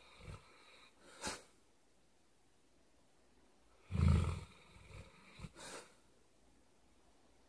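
Sleeping dog snoring: a couple of short snorts near the start, one loud, low snore about four seconds in, then a few quieter snuffles.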